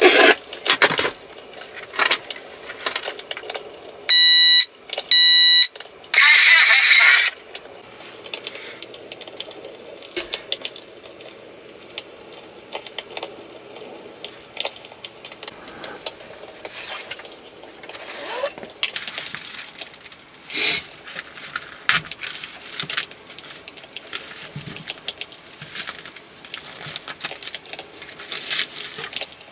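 Two loud electronic beeps about a second apart, then a short hiss, then scattered small clicks and clatter of objects being handled.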